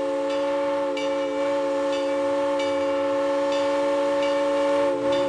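Train horn sounding one long, steady blast, several notes held together as a chord.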